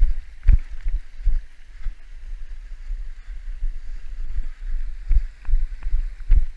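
Wind rumbling on a body-worn camera's microphone, with irregular heavy thuds of the wearer's footfalls, sparser in the middle and coming faster again near the end.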